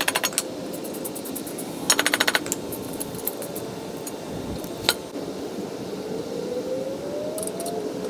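Two short runs of rapid metallic clicking, then a single sharp click, as hand tools tighten the nuts and bolts that fix a steel gas-pipe rail to its wooden supports.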